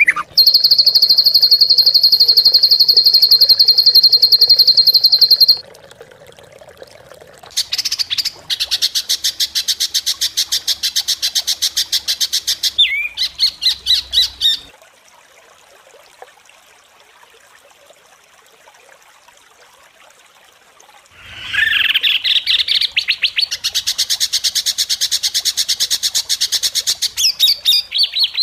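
Recorded songbird song made of harsh, rapid trills. First comes a very fast, high trill held at one pitch for about five seconds. After a short gap, a buzzy rattling trill runs for about seven seconds. Following a pause of several seconds, another rattling trill opens with a rising sweep.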